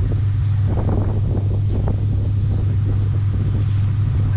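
A steady low engine drone, like an idling vehicle, with wind rumbling on the microphone and a few faint knocks early on.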